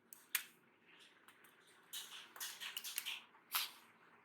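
Screwdriver tip prying and scraping at a laptop keyboard's plastic lock tabs: a faint click, a short stretch of scratching, then another click near the end.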